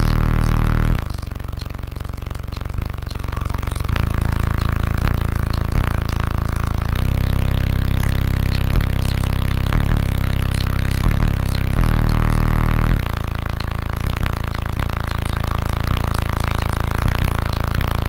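A car-audio system of twelve 15-inch Sundown ZV5 subwoofers in a fourth-order steel-caged enclosure, on three Crescendo 8K amplifiers, playing bass-heavy music very loud, heard from inside the vehicle. Deep sustained bass notes change every few seconds. It dips for a few seconds just after the start and swells loudest briefly about two-thirds of the way through.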